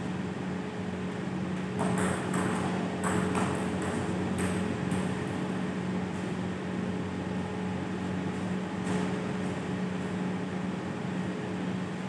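Celluloid-plastic table tennis ball ticking in a loose string of light, sharp taps, bouncing on table, bat or floor, between about two and five seconds in, over a steady low hum.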